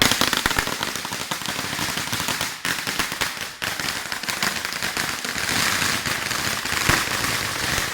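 A string of firecrackers going off in a rapid, continuous crackle of many sharp bangs, starting suddenly.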